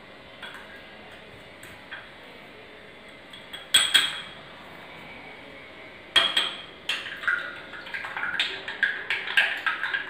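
A spoon stirring salt into water in a drinking glass, clinking against the glass. There is one sharp clink about four seconds in, then quick, repeated clinks from about six seconds in.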